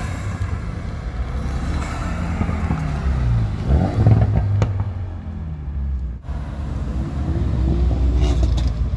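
Car engines running with a low rumble as cars drive slowly past, the engine note rising and falling twice. There is a single sharp click about four and a half seconds in.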